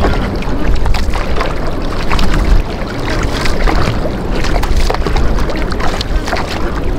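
Wooden paddle dipping and pulling through seawater beside a small outrigger canoe, with repeated splashes and water rushing past the hull.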